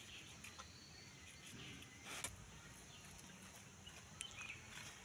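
Faint rural outdoor ambience with scattered soft clicks and one short clatter about two seconds in, and a brief faint bird chirp near the end.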